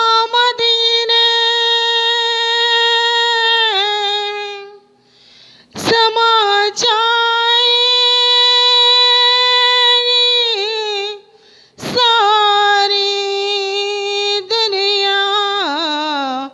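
A woman singing a devotional qawwali unaccompanied, drawing out a long 'yaa' over three long held notes. Each note holds a steady pitch and bends down at its end, with short breaks between them.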